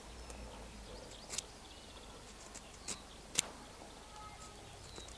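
A knife blade shaving a slanting cut along the end of a small scion twig for a graft: a few faint, short scraping clicks as the blade cuts the wood in several strokes.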